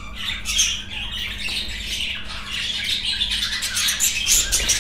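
Budgerigars chattering: a continuous stream of squawks and scratchy warbling chirps.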